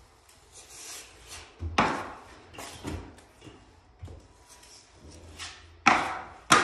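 Metal drywall taping knife scraping joint compound, in a series of separate strokes across the wall and against the edge of a metal mud pan. Several strokes start sharply, the loudest about two seconds in and twice near the end.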